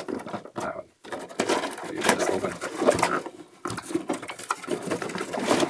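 Cardboard box being handled and opened by hand: rustling, scraping and small taps of the flaps and lid, with a short pause about a second in.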